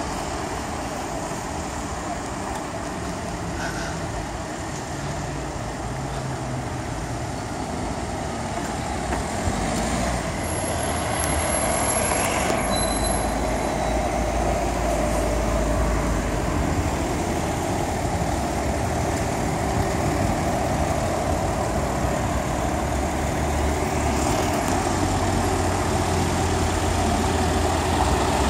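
Street traffic at a city junction: engines of cars and a bus running and idling nearby, a steady rumble that grows louder about halfway through.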